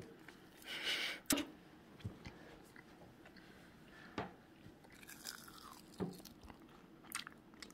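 Crisp fried string cheese crunching: a squelchy burst about a second in as a lemon wedge is squeezed over it, then a few sharp crunches a second or two apart.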